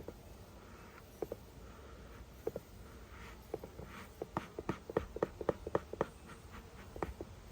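A run of short, light wooden clicks and taps from hive frames and a hive tool being handled in an open beehive: a few scattered at first, then a quick cluster of about a dozen in the middle.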